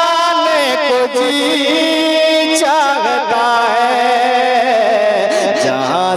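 A man singing a naat, an Urdu devotional song in praise of the Prophet, into a microphone. He draws out long notes that waver up and down in melismatic runs.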